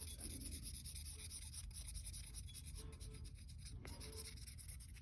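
Felt-tip marker rubbing back and forth over the metal flange of an intake manifold, faint scratchy strokes as the surface is colored in.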